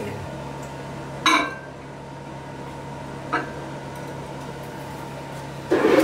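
A ceramic bowl is set down in a microwave oven and clinks against the turntable about a second in, with a lighter clink a couple of seconds later. A steady low hum runs underneath.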